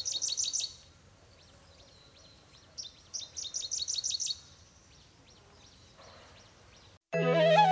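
A small songbird singing two quick phrases of rapidly repeated high notes, one right at the start and another about three seconds in. Instrumental music with a flute-like melody comes in near the end.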